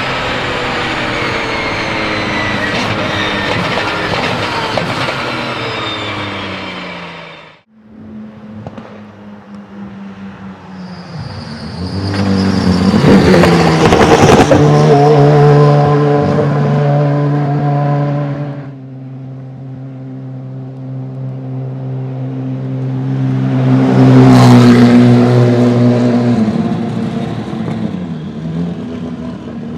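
Race car's 3.9-litre twin-turbo flat-six engine: first its note falls steadily as it comes off the throttle, then it cuts out suddenly. After that it runs at steady revs, growing loud to a peak about halfway through, dropping back, then swelling to a second loud peak near the end.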